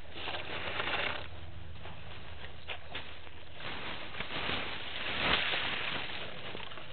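African elephants walking close by over dry grass and sandy ground, their footfalls rustling and crunching in swells near the start and again from about four seconds in, loudest just past five seconds. A steady low hum runs underneath.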